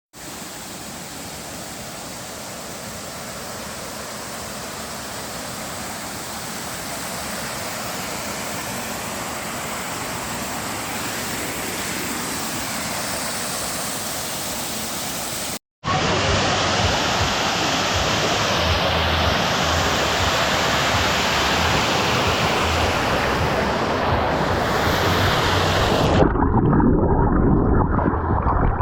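Steady rush of a waterfall's falling water, slowly growing louder. After a brief cut about halfway through it comes back louder and closer, with more low rumble. Near the end it turns suddenly muffled, the high hiss gone.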